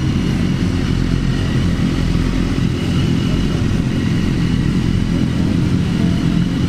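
Motorcycle running steadily at speed, its engine under a heavy, buffeting wind rush on the microphone.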